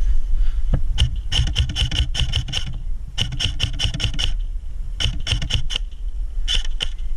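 Airsoft guns firing in rapid strings of sharp shots, about six a second, in three main bursts with a couple of single shots near the end, over a low rumble of wind and handling noise.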